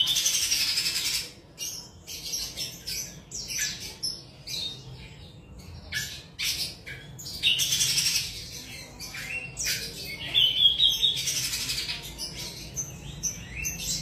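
Cucak jenggot (grey-cheeked bulbul) calling: a string of short, bright chattering and whistled phrases with brief pauses between them, one whistled phrase rising in pitch about ten seconds in.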